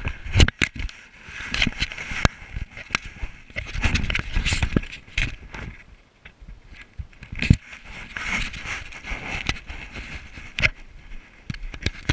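Action camera held by a child bouncing on a trampoline: irregular thumps and knocks from handling and landings, with rushing wind noise on the camera's microphone.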